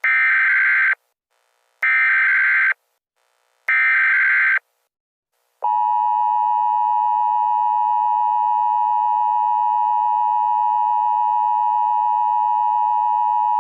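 Emergency Alert System tones: three bursts of SAME header data, each a harsh digital screech of about a second with short gaps, then, from about five and a half seconds in, the steady two-tone EAS attention signal. They open a national EAS test.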